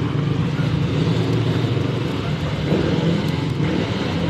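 Dirt bike engine running steadily at low revs.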